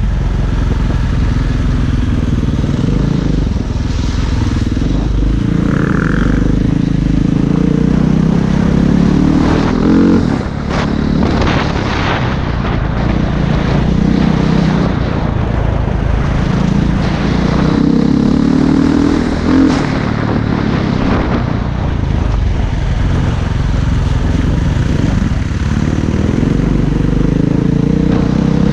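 Dirt bike engine under way, repeatedly revving up and easing off, heard close up from a helmet-mounted camera.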